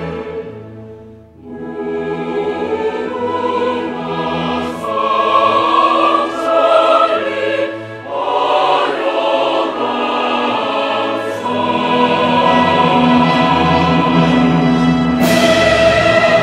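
Choral music with orchestral accompaniment, sung in long held phrases, with a short break about a second in.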